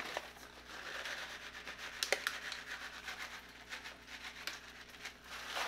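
A few faint ticks of fish-food pellets being shaken lightly from their container, over a soft steady hiss.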